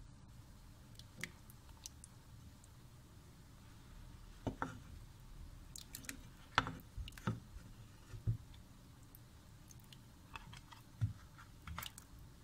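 Spatula stirring a thick chicken and potato curry in a pot: scattered, irregular soft clicks and knocks of the utensil against the pot.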